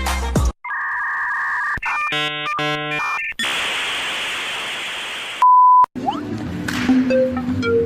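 A string of edited-in electronic sounds: steady beep tones, a burst of stacked electronic tones and a hiss of static, then a loud half-second beep about five and a half seconds in. Light music with short plucked-sounding notes follows.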